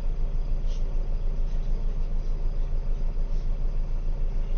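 Heuliez GX 327 city bus engine running, heard from inside the passenger cabin as a steady low rumble with a fast, even throb.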